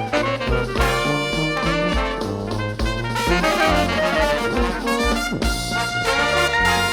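Upbeat background music with brass instruments over a steady bass beat.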